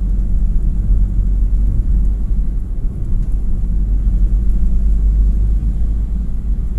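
Steady low rumble of engine and tyre noise from inside a moving vehicle cruising on a concrete highway.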